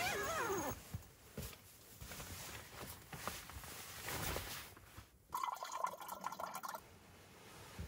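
Nylon sleeping bag rustling as it is handled, with a zip pulled for about a second and a half about five seconds in.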